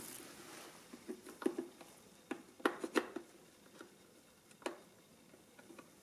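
A string of light, separate mechanical clicks from the keys of an unplugged Marchant ACT-10M mechanical calculator. The STOP button is pressed to release keys left held down, and they spring back up; the loudest clicks come between two and three seconds in.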